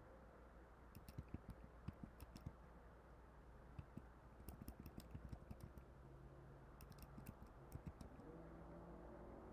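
Faint keystrokes on a computer keyboard, tapped in short clusters of a few keys with pauses between, over a low steady background hum.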